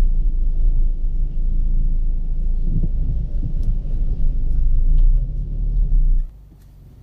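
Low rumble of a car's engine and road noise heard inside the cabin. It cuts off abruptly about six seconds in, leaving a much quieter hum.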